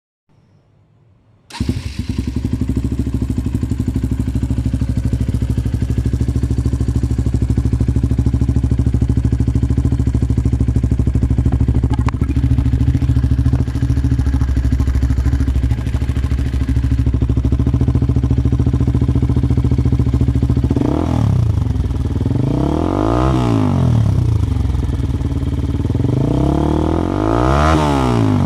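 Bajaj NS 200's single-cylinder engine running through a Cott RS7R aftermarket exhaust. It comes in suddenly about a second and a half in and settles into a steady idle. Near the end it is revved up and let fall back three times.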